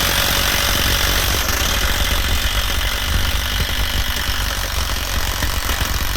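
Milwaukee M12 Stubby Gen 2 half-inch compact impact wrench hammering steadily at speed 3, driving a 3/8-inch fastener into a stack of plywood.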